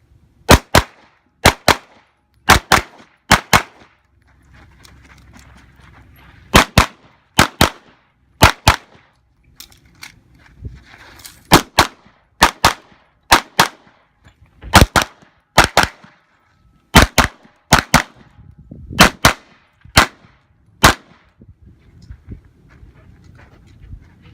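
Handgun shots fired in quick pairs (double taps), about a second between pairs, some thirty shots in all. There are two breaks of a couple of seconds, typical of a practical pistol stage where the shooter moves between positions or reloads.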